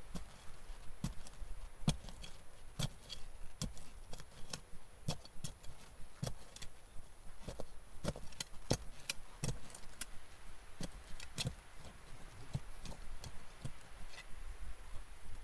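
A small metal hand tool digging out a Dakota fire hole: irregular scrapes and knocks as it cuts and lifts soil, about one or two a second.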